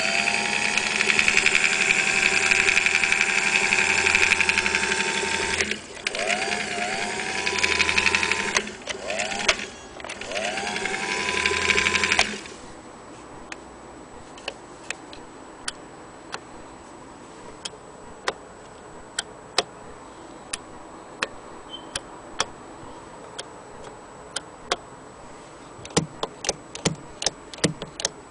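Singer 306K electric sewing machine running, its motor spinning up with a rising whine, easing off and speeding up again three times, then stopping about twelve seconds in. After that come scattered sharp clicks as its stitch dial and levers are worked by hand, coming faster near the end.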